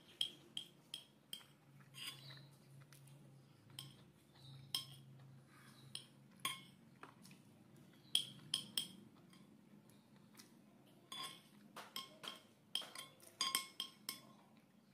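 Steel spoon scraping and clinking against a ceramic plate: a run of sharp light clinks, each with a short ring, thickest near the start and through the last few seconds.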